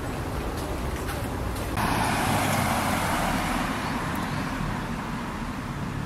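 Road traffic noise: a steady low rumble, joined about two seconds in by a louder, even rushing hiss that sets in sharply and slowly fades.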